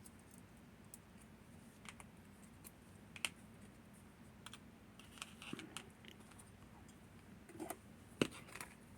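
Small metal parts of a lever lock clicking and rattling lightly as it is taken apart by hand: a few scattered faint clicks, with the loudest, sharpest click about eight seconds in.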